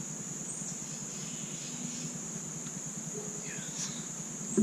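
Steady, high-pitched chorus of insects, with a few faint short chirps and one sharp knock right at the end.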